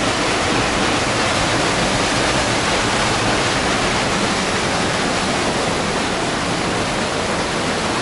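Agura waterfall's heavy flow of water pouring down, heard up close as a steady, even rush.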